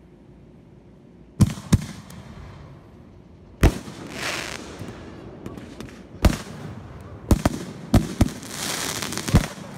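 A batch of consumer fireworks going off together after being set off by accident: after a quiet start, a string of sharp bangs at irregular intervals with hissing between them.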